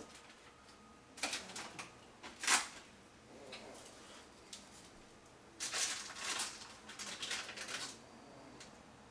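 Things being shifted about inside an open refrigerator: short runs of light clinks and rattles of containers and bottles, one run about a second in with a sharper clatter just after, and a busier one from the middle to near the end.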